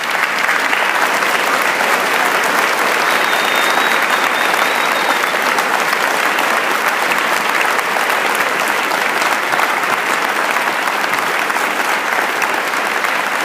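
Large audience applauding steadily after a choir song ends, the clapping swelling in just before and holding at full strength throughout.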